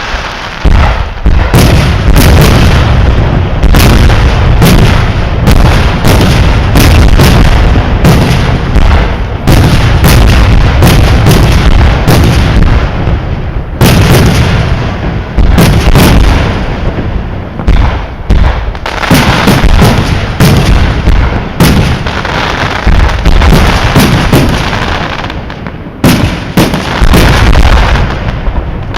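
Fireworks display: a dense, continuous barrage of shell bursts and booms, very loud and overloading the microphone, with a constant low rumble under the bangs and only brief lulls.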